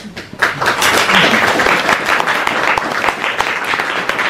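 Audience applauding: dense clapping from many hands that starts about half a second in and keeps up steadily.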